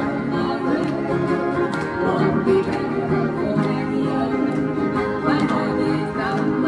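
Acoustic guitars strummed together in a steady rhythm, played live through small guitar amplifiers: an upbeat calypso tune.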